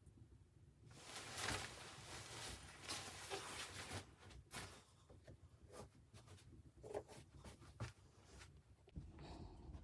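Faint rustling and scraping of things being handled, starting about a second in, followed by scattered light clicks and knocks.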